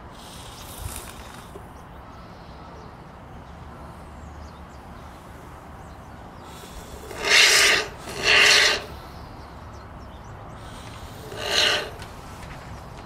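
Three short, loud rasping scrapes, two back to back and a third a few seconds later, as the PVC pipe prop is shifted and turned on the newspaper-covered table.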